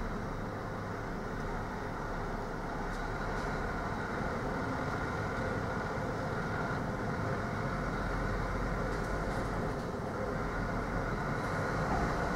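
Delivery lorry's engine running in a store's delivery yard, a steady low rumble with no bangs or knocks.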